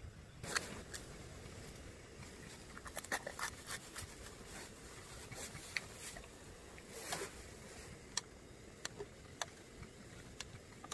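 Irregular clicks, taps and short scrapes of objects being handled close by, denser about three seconds in and again around seven seconds.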